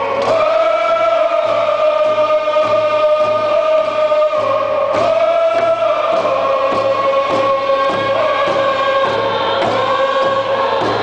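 A canoe family singing a traditional song together in unison, long held notes over a steady hand-drum beat of a little under two beats a second.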